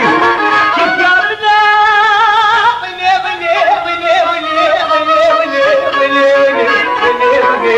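Kurdish folk song: an ornamented melody line with heavy vibrato over instrumental accompaniment.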